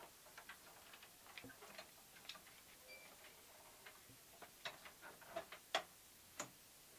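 Faint, irregular clicks and light taps, with two sharper knocks near the end: small handling noises of an old wooden door and a sheet of paper.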